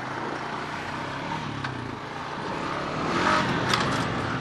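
ATV (four-wheeler) engine running as it is ridden, picking up revs about three seconds in, with a few sharp clicks near the end.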